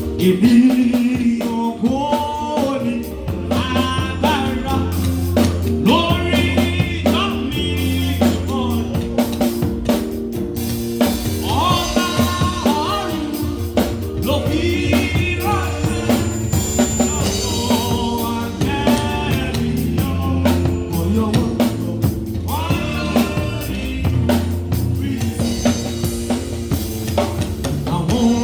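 Youth choir singing a gospel thanksgiving song, backed by a drum kit and a steady bass line.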